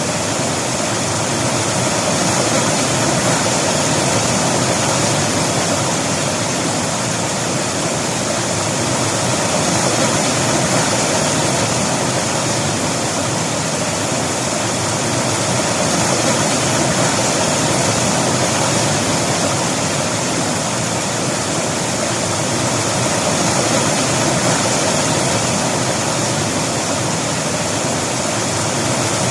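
River water rushing and tumbling, a loud, steady rush with slow gentle swells.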